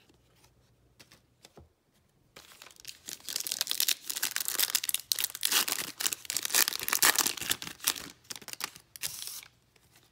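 A foil trading-card pack wrapper being torn open and crinkled by hand: a dense run of crackling and ripping that starts a couple of seconds in, lasts about seven seconds and stops shortly before the end.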